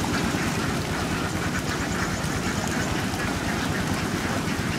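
A very large flock of domestic laying ducks quacking together as one dense, steady chorus.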